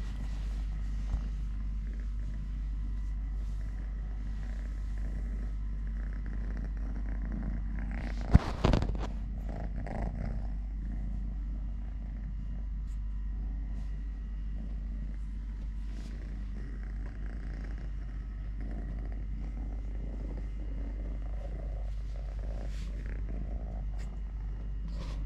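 Kitten purring steadily, a continuous low rumble, with a sharp knock and a couple of smaller clicks about eight seconds in.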